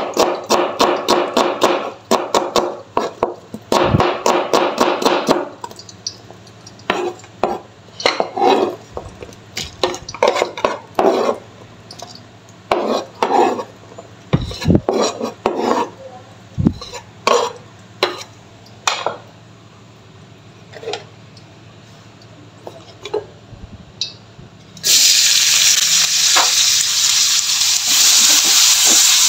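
Kitchen knife cutting onion and red chilies on a cutting board: a fast run of chops for the first few seconds, then slower, scattered cuts. About 25 s in, a sudden loud, steady sizzle starts as sliced onion, garlic and chilies fry in hot oil in a wok.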